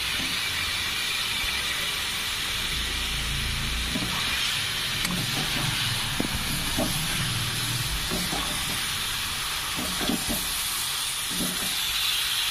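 Spice masala sizzling in a metal kadai with a steady hiss as blanched cauliflower florets are stirred in, a metal spatula scraping and knocking against the pan now and then.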